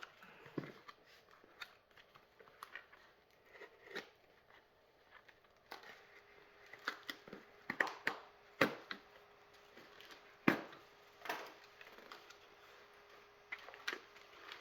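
Packaging being handled and torn open by hand: irregular crinkling and tearing with scattered sharp clicks and snaps, the loudest about two-thirds of the way through.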